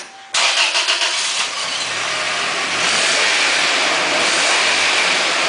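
1998 Toyota Tacoma's 2.7-litre four-cylinder engine starting up about a third of a second in and then running steadily on freshly fitted spark plugs and plug wires, which the owner says cured a misfire on cylinder two.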